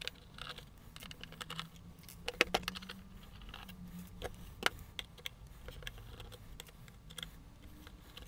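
Screwdriver backing out the small screws of a sheet-metal server power supply case (HP HSTNS-PL18): irregular light metallic clicks and taps, with loose screws set down on the bench. The sharpest clicks come about two and a half and four and a half seconds in.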